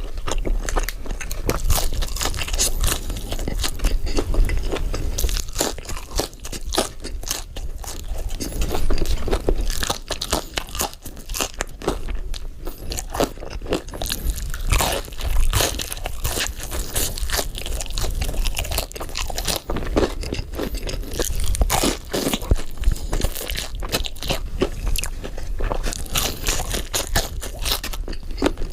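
Close-miked eating sounds: crunchy bites and chewing of fast food, a dense run of crackles and crunches with no pause.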